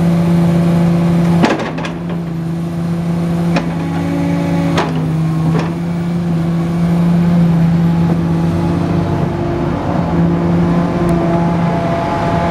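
Komatsu PC450 excavator's six-cylinder diesel engine running steadily, with a few sharp knocks between about one and a half and six seconds in.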